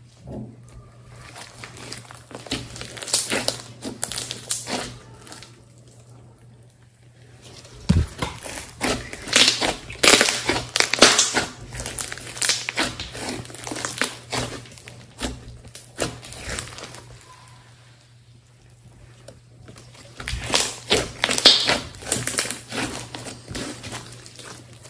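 Thick, doughy slime being kneaded, squeezed and stretched by hand, making dense runs of sticky clicks and crackling pops. The sound pauses twice in short lulls.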